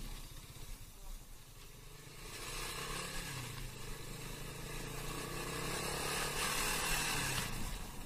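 Motorcycle engine running while riding, picking up speed about two seconds in, with a growing rush of wind on the microphone, then easing off shortly before the end.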